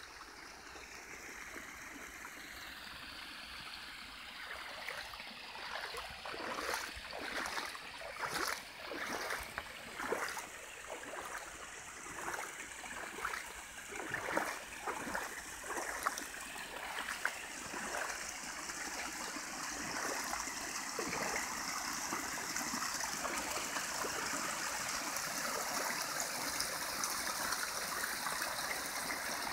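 Small stream flowing and water spilling through a beaver dam of sticks, the rush growing steadily louder through the second half. Irregular crackles and rustles come through the middle stretch.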